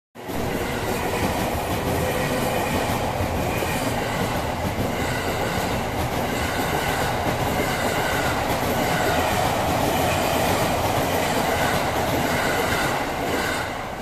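JR East E217 series electric train passing close by over a level crossing, its wheels running on the rails in a steady loud noise that drops away near the end as the train clears the crossing.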